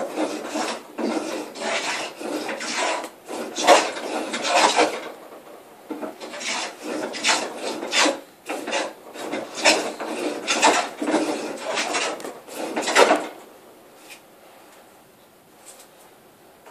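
Record 050 combination plane cutting a bead in oak: a run of short, repeated rasping strokes as the iron shaves the wood. There is a brief lull about five seconds in, and the strokes stop a few seconds before the end.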